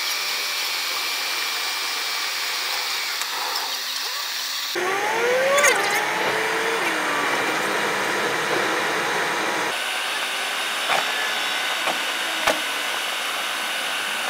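Steady hissing road and cabin noise from inside a moving car. Its character changes abruptly about every five seconds where the driving clips are cut together, with a few brief gliding tones and clicks.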